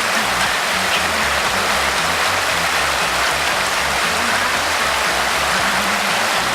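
Creek water rushing steadily over rocks, an even hiss.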